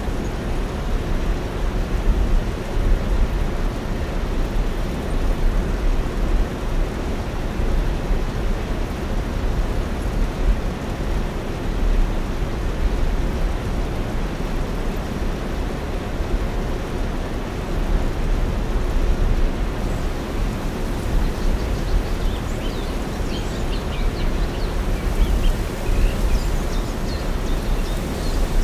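Steady outdoor rumble and hiss, heaviest in the low end, with faint short high-pitched chirps coming in from about twenty seconds in.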